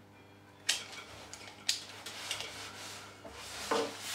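A multimeter and its test leads being picked up and moved off a workbench: rubbing and scraping, with two sharp knocks about one and two seconds in. A faint steady hum runs underneath.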